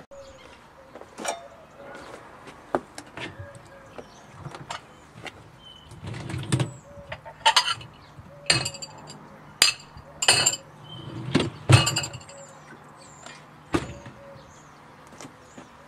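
Irregular knocks and ringing clinks, a dozen or more, as a dishwasher and its parts are handled, with the loudest clinks around the middle.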